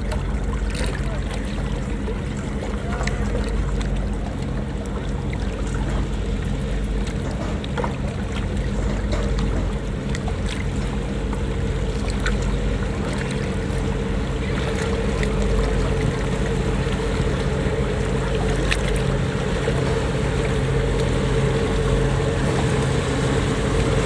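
Marine engines of patrol boats running steadily, a low, even drone with a hum above it, growing slightly louder in the second half.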